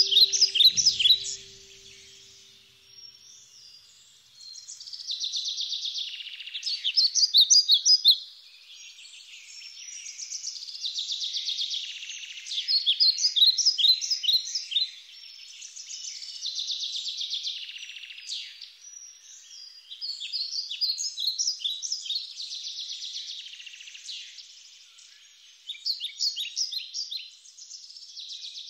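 Songbirds singing: bursts of high chirps and trills that recur every few seconds.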